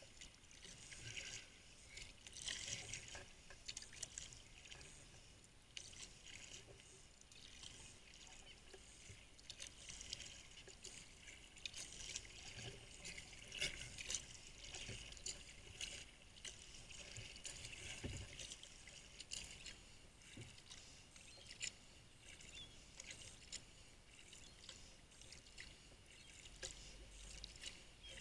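Faint water sounds of a sea kayak being paddled: paddle blades dipping and water splashing and lapping at the hull, swelling and fading every second or two, with occasional light clicks.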